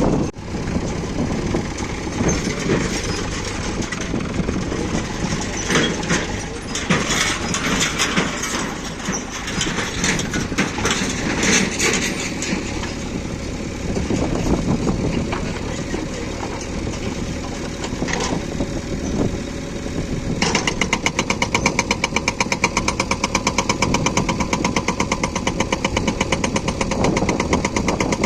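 JCB backhoe loader's engine running, with irregular clattering and knocks in the first half. About two-thirds of the way in, the hydraulic rock breaker starts hammering with rapid, even blows, breaking hard stone.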